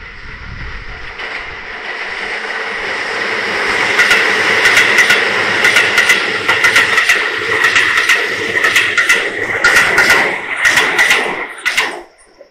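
Keisei 3700-series electric commuter train passing close at speed on a curve: the rumble builds for about four seconds, then wheels clack over rail joints with a steady high squeal. The sound cuts off suddenly as the last car goes by near the end.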